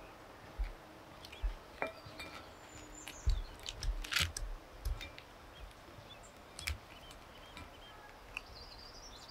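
Hands breaking open spiky horse chestnut husks and picking through the split shells in a glass bowl: irregular dry clicks and cracks with soft knocks against the bowl, and a louder crackle about four seconds in.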